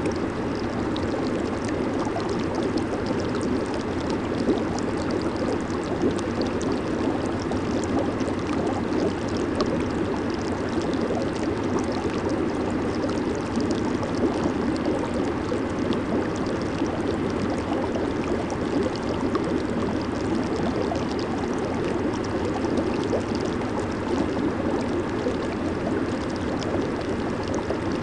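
Hot tub jets running with the water bubbling and churning steadily.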